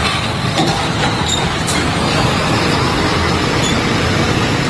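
Loaded UD Quester logging truck, a tractor-trailer carrying logs, driving past close by: steady diesel engine and tyre noise.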